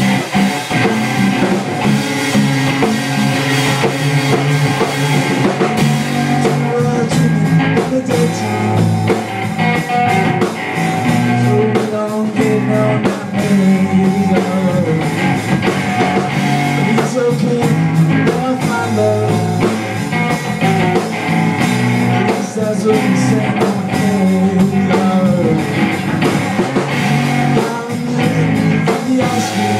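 Live rock band playing: electric guitar and electric bass through amplifiers with a drum kit, and a man singing. The guitarist-singer is out of tune by his own account.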